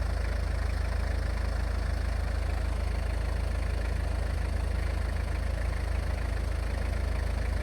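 Toyota Land Cruiser Prado LJ71G's 2.4-litre four-cylinder turbodiesel idling steadily.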